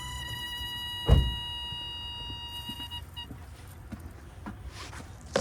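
Steady high whine with overtones, typical of the car's electric fuel pump priming with the ignition switched on, cutting off about three seconds in. A heavy thump about a second in and a sharp click near the end.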